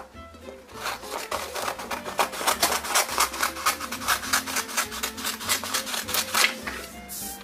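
Scissors snipping through a sheet of paper in a quick run of short, crisp cuts, starting about a second in and stopping near the end.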